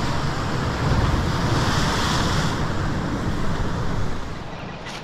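Ocean surf breaking and washing over a rocky shore, swelling to its loudest about two seconds in and easing off near the end, with wind rumbling on the microphone.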